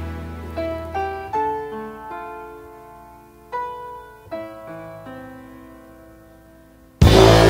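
Background music: a slow phrase of single piano notes and chords that ring and fade away. Near the end a louder, fuller track cuts in abruptly.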